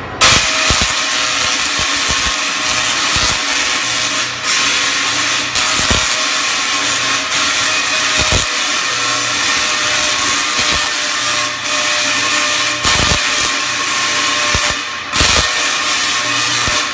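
Large Tesla coil firing, its sparks striking a performer in a metal Faraday suit: a loud, steady buzzing crackle that comes on abruptly at the start, with a few brief breaks.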